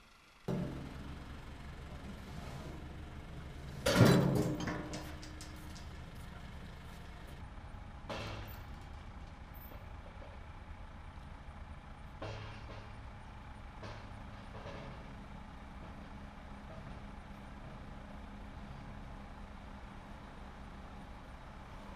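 Telehandler engine running steadily, with loud metal clanks as the closure's beam and posts knock together, the loudest about four seconds in and a few smaller ones after.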